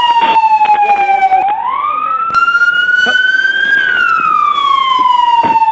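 Police car siren in wail mode, its pitch sliding slowly down, up and down again in one long cycle of about five seconds.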